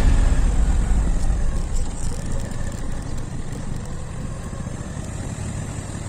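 Motorcycle riding along a gravel road, heard from the riding bike's own camera: engine running under steady wind and road noise, the level easing off over the first few seconds and then holding steady.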